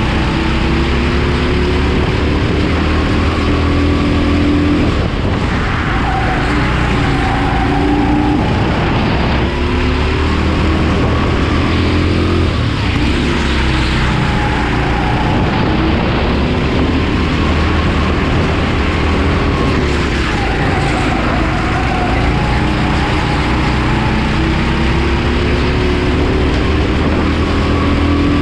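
Rimo EVO6 kart's Honda GX270 single-cylinder four-stroke engine running hard, heard from on board. Its pitch climbs as the kart accelerates and drops each time the driver lifts for a corner, about every three to four seconds.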